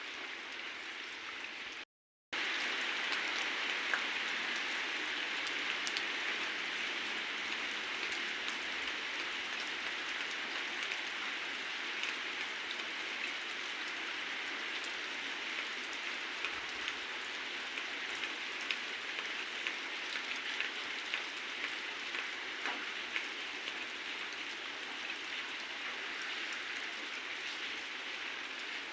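Heavy rain falling steadily, with many small drop ticks on nearby surfaces. The sound cuts out completely for a moment about two seconds in, then returns a little louder.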